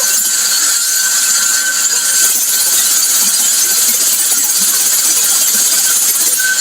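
Power saw running steadily through a floor slab, cutting an opening, with a steady hiss and a faint high whine.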